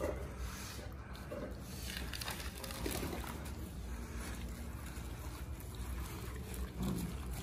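Young Presa Canario dogs eating from a pile of raw chicken heads: wet chewing and smacking, over a steady low rumble.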